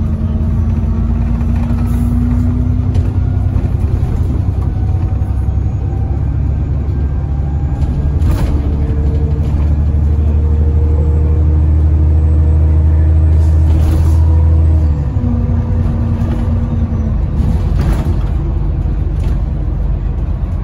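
Alexander Dennis Enviro 400 double-decker bus running under way, heard from inside: a steady low rumble with a whine whose pitch rises slowly, then drops suddenly about fifteen seconds in, while the overall sound gets a little quieter. A few sharp rattles come through, about eight, fourteen and eighteen seconds in.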